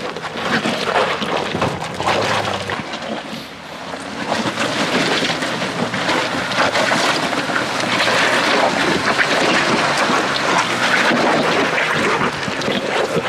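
Off-road vehicle driving over a rocky trail obstacle: engine running under load amid a dense crackling noise, with wind buffeting the microphone.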